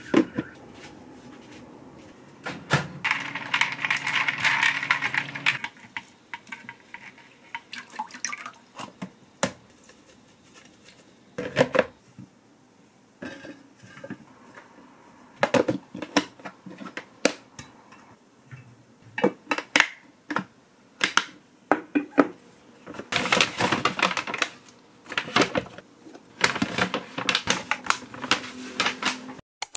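Kitchen handling sounds: a run of clicks and clatters from plastic and stainless steel containers, lids and bowls as cooked broccoli is drained and packed away, with a rushing noise a few seconds in and paper rustling near the end.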